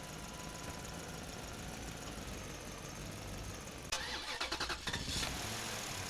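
An engine running steadily at a low level, with a burst of rapid rattling clicks from about four to five seconds in.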